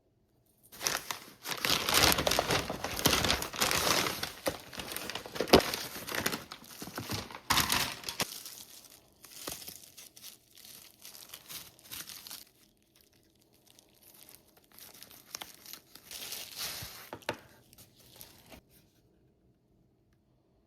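Packaging being torn open and crinkled by hand, in a run of loud rustling and ripping for several seconds that then turns to softer, intermittent handling, with one more burst of crinkling a few seconds before the end.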